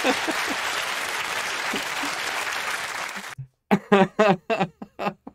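Studio audience applauding, cut off suddenly about three and a half seconds in. Then a man laughs in short bursts.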